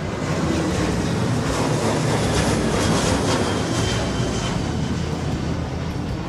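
Jet airliner passing close overhead: a steady roar that swells, peaks about halfway through, then slowly eases off.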